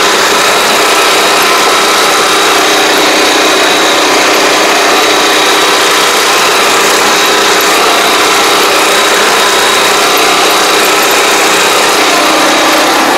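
Small engine of a riding crop sprayer running steadily at constant speed, with a steady high whine over the engine noise.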